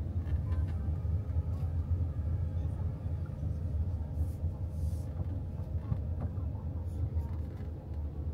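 Camper van driving, heard from inside the cab: a steady low rumble of engine and road noise.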